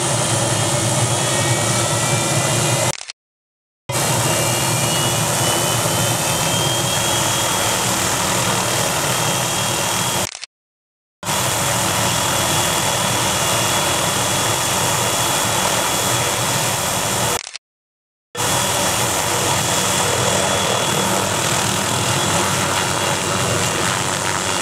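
MD 500-series helicopter's turbine engine running on the ground as the rotor spins up: a high whine rises in pitch over the first several seconds and then holds steady over a deep rumble. The sound cuts out abruptly three times.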